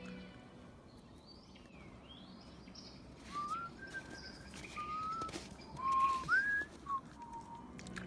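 A slow whistled tune, single held and sliding notes, starts about three seconds in after a few faint high chirps. It is part of the film's music track.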